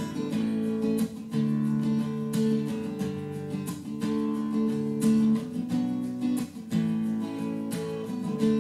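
Acoustic guitar music with strummed chords, played back through Klipsch RF-7 III floor-standing speakers driven by a Hypex NC502MP class D amplifier and picked up by a microphone in the room.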